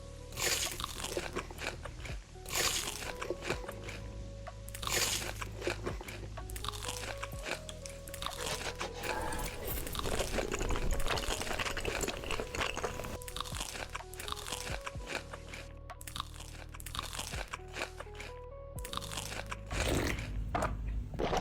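Crunchy food being bitten and chewed in repeated crunches, over background music.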